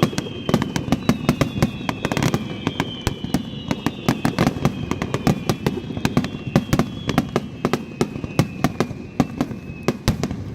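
A dense barrage of fireworks: shells bursting and crackling many times a second without a break. Several thin high whistling tones slide slowly down in pitch through the volley.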